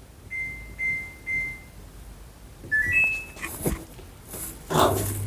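Samsung top-loading washing machine's control panel beeping: three short even beeps, then a rising three-note chime as the spin cycle is started. Near the end there is a brief rustling knock, and the drain pump starts with a steady low hum.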